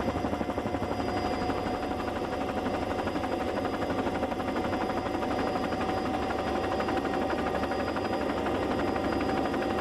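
Steady engine drone with a fast, even pulse and a constant thin whine over it, unchanging throughout.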